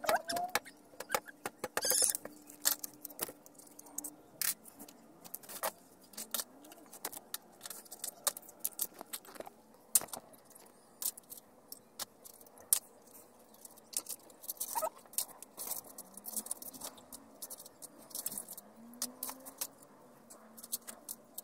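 Irregular sharp clicks and crinkles of hard plastic being handled: a plastic-bottle filter, small plastic tubes and plastic bags.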